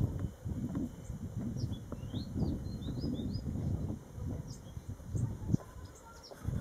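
Small birds chirping: short rising chirps in two brief clusters, a couple of seconds in and again near the end, over a louder gusty low rumble on the microphone.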